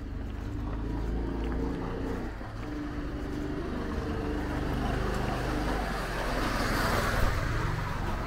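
A motor vehicle's engine running close by, with a steady low drone, and the noise swelling to its loudest about seven seconds in as it draws near.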